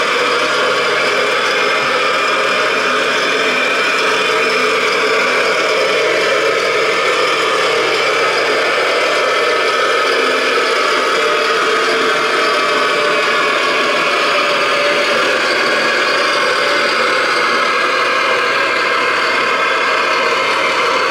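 Radio-controlled scale Volvo A45G articulated dump truck driving, with a steady engine-like running sound that holds at an even level.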